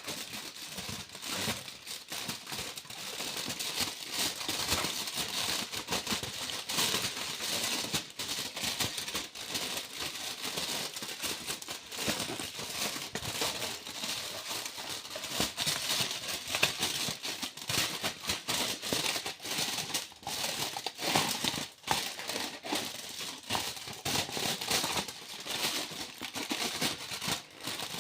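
Foil being crinkled and crumpled by hand, in continuous irregular crackles.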